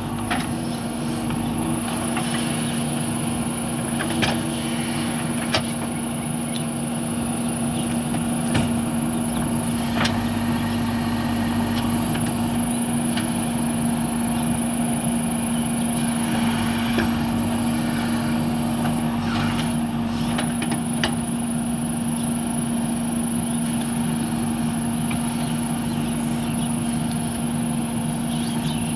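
JCB backhoe loader's diesel engine running steadily at working revs, with a few sharp knocks here and there.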